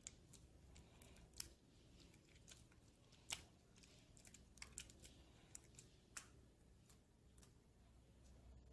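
Faint, scattered small clicks and pops of slime being squished and stretched by hand, irregular and sparse, the loudest about three seconds in.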